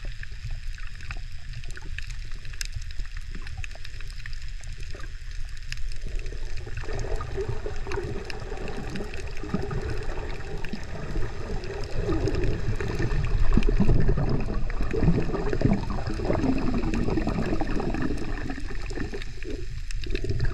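Water heard through a camera held underwater while snorkeling: a steady low rumble with gurgling and scattered faint clicks, the gurgling growing louder about a third of the way in.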